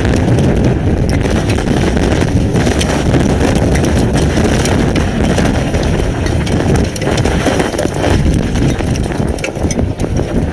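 Storm-force derecho wind buffeting a webcam's microphone in a loud continuous low rumble, with many sharp scattered ticks of wind-driven hail and rain striking the camera.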